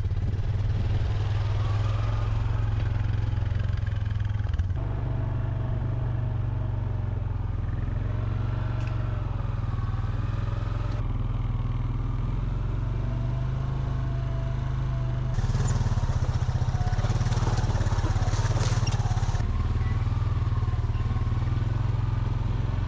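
Honda ATV engine running steadily as the four-wheeler drives along, towing a trailer, a constant low engine hum. The sound changes abruptly several times.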